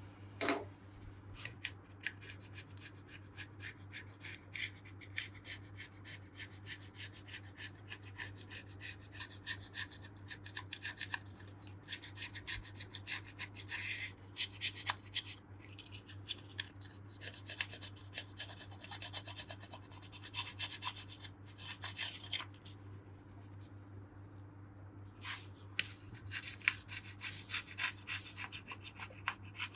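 Rapid back-and-forth scraping and rubbing strokes as old gasket material is cleaned off the engine case's gasket surface, with a brief pause a little before the end.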